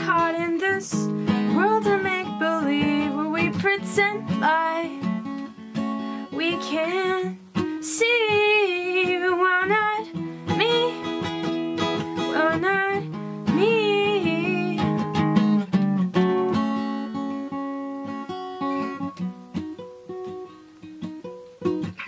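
A woman singing over an acoustic guitar, her voice wavering on held notes. About three quarters of the way through the singing stops and the guitar plays on alone.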